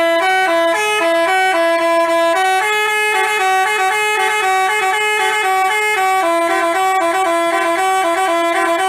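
Basuri telolet horn, a multi-tone bus horn, playing a quick, loud tune. It switches without a break between a few pitches in short and held notes.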